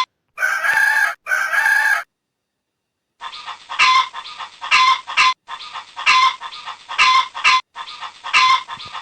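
Rooster calling: two calls in the first two seconds, then, after a pause of about a second, a run of repeated shorter calls.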